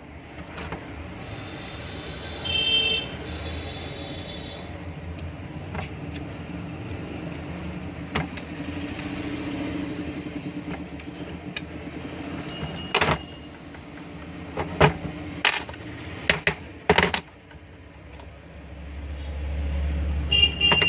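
Metal parts and hand tools clinking and knocking at irregular intervals while a small fan motor is reassembled, over a low steady hum.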